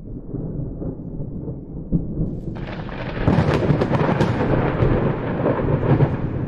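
Thunder: a low rumble building up, then a louder, crackling peal breaking about two and a half seconds in and rolling on.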